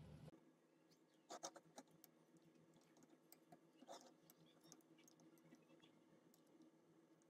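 Near silence, with a few faint, sharp clicks: a cluster about a second and a half in and another about four seconds in.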